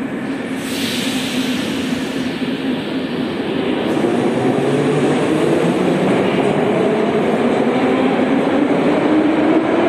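Metro train departing the platform: a burst of hiss about a second in, then the traction motors' whine rising steadily in pitch over the running rumble as the train accelerates away.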